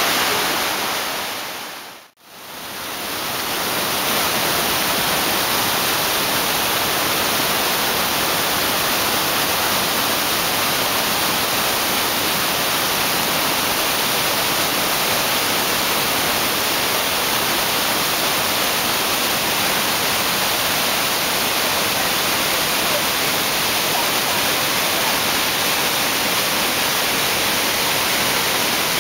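Steady rushing of the Potomac River's whitewater rapids at Great Falls, running high. About two seconds in it briefly fades out and comes back.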